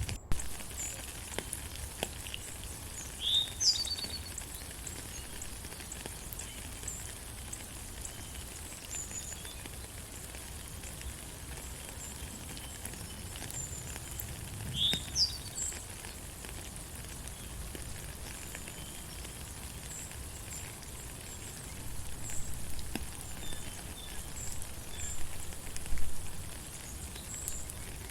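Steady rain falling in a forest, with birds singing over it: a pair of sliding chirps about 3 s in and again about 15 s in, and many short high peeps scattered throughout. The rain comes in a few louder patches near the end.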